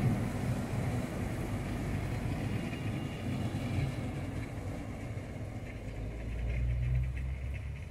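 SA133 diesel multiple unit running past on the track: a steady rumble of wheels on rails with the diesel engine's low hum, the hum growing louder about six seconds in.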